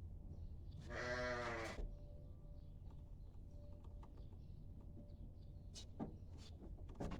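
A sheep bleats once, a single wavering bleat just under a second long. A couple of faint knocks follow near the end.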